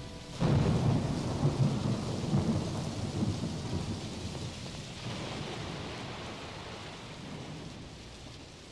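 A thunderclap breaks about half a second in and rolls on, slowly fading, over steady falling rain: the recorded storm sound effect at the close of the song on the soundtrack.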